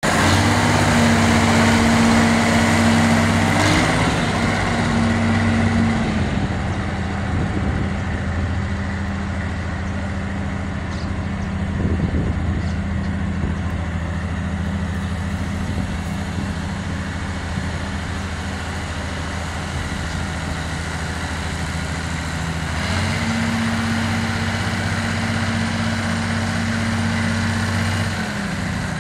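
Zanello tractor's diesel engine running while towing a loaded hopper trailer, its revs steady and higher at first, dropping about six seconds in, then picking up again about 23 seconds in and easing off near the end.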